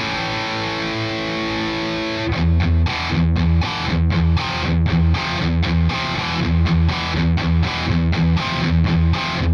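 Distorted electric guitar played through a Kemper Profiler amp profile. A chord rings out for about two seconds, then gives way to a tight, choppy riff of short muted stabs on the low strings.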